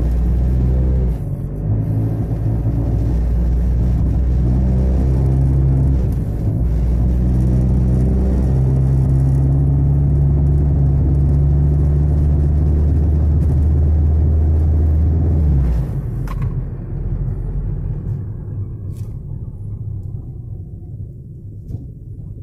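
Honda Civic in motion, heard from inside the cabin: a loud, steady low rumble and drone, the rough noise and vibration the car is being checked for. It drops off sharply about sixteen seconds in and stays much quieter after.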